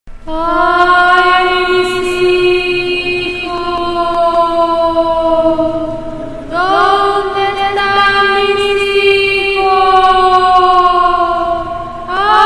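Suspense sound effect: a chant-like held drone in long notes of about six seconds, each sliding up at the start and then sinking slowly. A new note begins about halfway through and another at the very end.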